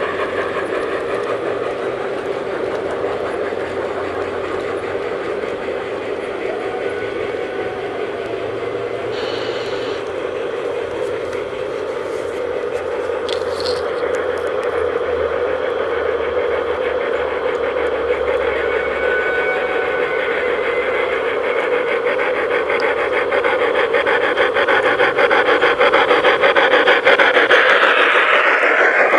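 G-scale garden railway trains running on outdoor track: a steady rolling rattle of small wheels clicking over the rails, growing louder near the end as a locomotive passes close.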